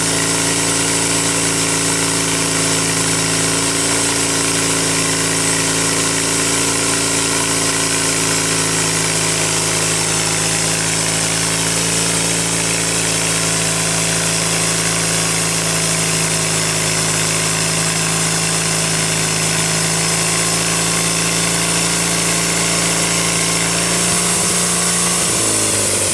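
Homemade sawmill's engine running steadily at speed, then slowing with falling pitch near the end as it is wound down.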